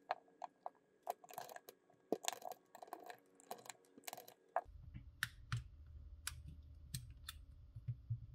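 Scattered small clicks and taps of plastic parts and a small screwdriver being handled as a handheld inspection camera is taken apart; the clicks come thick and fast in the first half, then sparser, with a faint low hum coming in about halfway.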